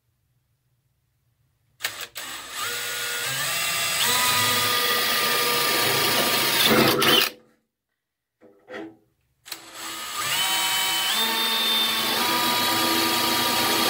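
Electric drill run twice, each time for about five seconds, its motor whine climbing in steps as it speeds up. It is drilling holes in the toolbox's sheet steel.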